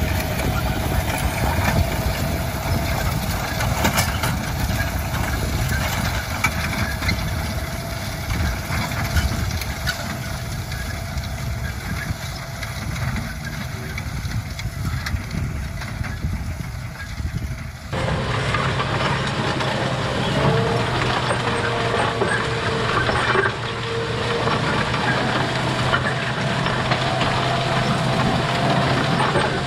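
A John Deere tractor pulling a MaxEmerge XP row-crop planter through stubble, its engine running steadily under the clatter of the planter's row units. About 18 seconds in, the sound changes abruptly to a closer, steadier engine hum with the row units rattling through the soil.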